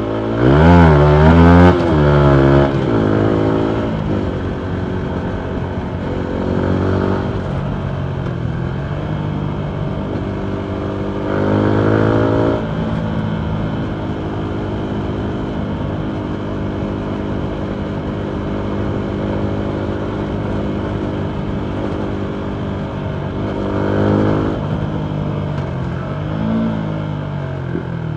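Single-cylinder four-stroke engine of a 2019 Yamaha MT125 running through a full Akrapovic exhaust. It opens with a rev that swings up and down in pitch, then surges three more times under throttle, with steady running in between.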